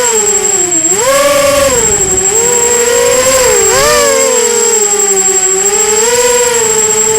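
Brushless motors and propellers of a 250-size FPV racing quadcopter in flight, their whine rising and falling in pitch as the throttle changes, about five or six swells. A steady high-pitched whine runs underneath.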